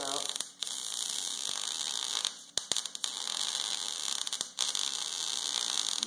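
Wire-feed welder arc running a bead on steel: a steady hiss and crackle, with brief breaks in the arc about half a second, two and a half and four and a half seconds in.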